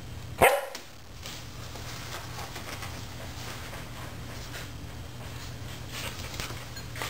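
A Border Collie barks once, sharply, about half a second in.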